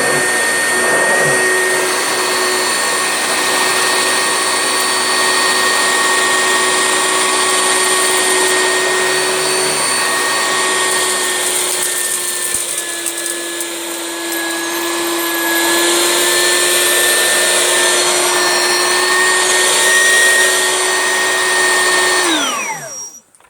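Oreck XL Classic upright vacuum cleaner running with a steady high whine as it is pushed over a thick faux fur rug, its pitch sagging for a few seconds midway. It is switched off near the end and winds down. The owner takes it to be clogging with thick dog hair.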